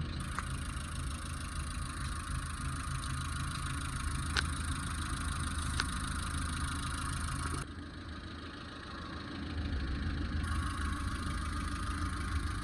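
Maruti Suzuki Eeco's four-cylinder petrol engine idling steadily just after being rebuilt with a new crankshaft and connecting rod, following a seized connecting-rod bearing. The sound dips briefly about eight seconds in.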